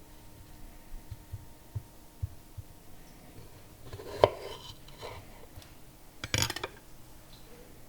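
Handling knocks and clicks: faint light taps, then a single sharp knock about four seconds in and a short rattling cluster of clicks a little over six seconds in.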